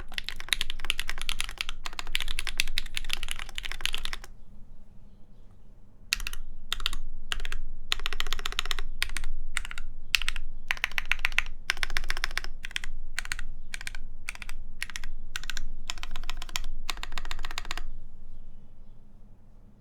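Typing on a mechanical keyboard with lubed JWK Ms Piggy linear switches, a full aluminum plate and GMK keycaps. A fast run of keystrokes is followed by a pause of about two seconds, then short bursts of keystrokes that stop shortly before the end.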